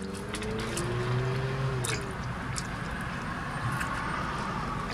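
Quiet eating sounds: a few small sharp bites and chewing on a sauce-dipped fry, over a steady low background hum.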